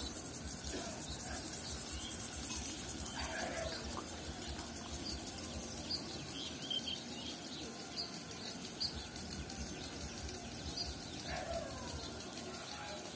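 Small birds chirping in short, high notes over a steady hiss of water spraying from field sprinklers.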